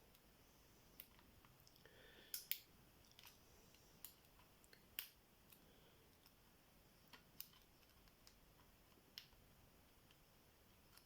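Faint, irregular metallic clicks and ticks of a pick and homemade tension tool working the pins of a tubular bicycle lock, as the pins are pressed and set one by one.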